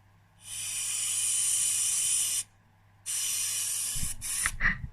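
Air blown by mouth down the fuel inlet pipe of a Yamaha DTR125 carburettor, hissing out through the float needle seat. There are two breaths: a long hiss of about two seconds, then a shorter one. A few light knocks from handling the carb come near the end.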